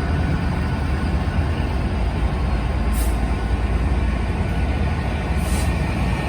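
Diesel-hauled passenger train on the line, a steady low rumble, with two short hisses of air about three and five and a half seconds in.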